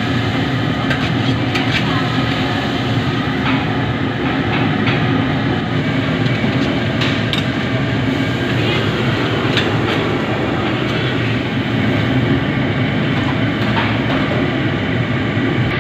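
Steady rumbling noise of a commercial wok range's burner, with seafood sizzling in the wok. A metal ladle scrapes and knocks against the wok now and then.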